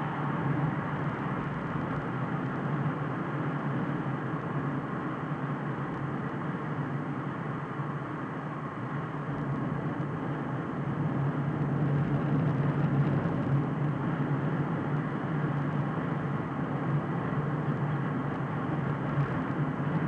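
Steady engine hum and tyre and road noise of a car cruising at about 70 km/h, heard inside the cabin, swelling slightly about twelve seconds in.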